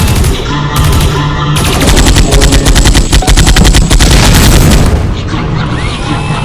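Cartoon machine-gun sound effect: a rapid stream of automatic gunfire starting about a second and a half in and lasting about three seconds, over background music.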